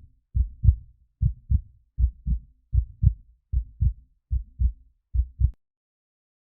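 Heartbeat sound effect: low, deep double thumps, lub-dub, repeating a little under once a second, which stop about five and a half seconds in.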